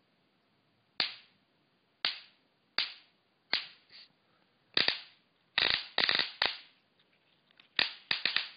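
Sharp snapping cracks of high-voltage sparks from a homemade 9-volt-battery step-up transformer of about 3,000 volts, arcing at its leads. About a dozen irregular snaps, some in quick runs of two or three.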